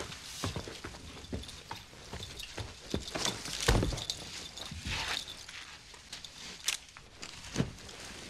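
Irregular knocks of boot footsteps and furniture on a floor, with a heavier thump about three and a half seconds in and sharp clicks near the end.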